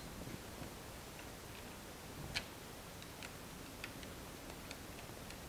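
Faint, irregular small metal clicks of a screwdriver turning the long screws that fasten the extruder stepper motor to the 3D printer's extruder assembly, the loudest a little over two seconds in.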